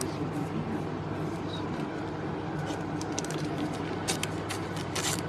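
Baseball card packs being opened and the cards handled: scattered short crackles and clicks, mostly in the second half, over a steady low hum.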